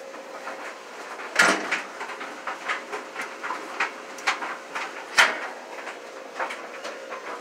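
Clicks of a top-loading washing machine's control dial being turned, with two louder knocks, about a second and a half in and just after five seconds in, over a faint steady hum.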